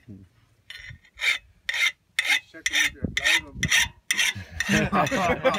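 A flat hand file rasping along the steel blade of a firefighting hand tool, sharpening it in repeated strokes, about two a second.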